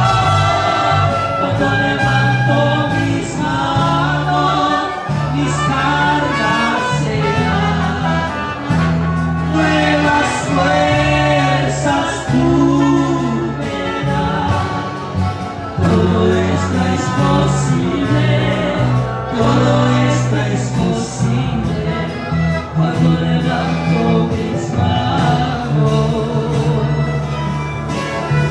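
Gospel worship song: voices singing over instrumental accompaniment with sustained bass notes.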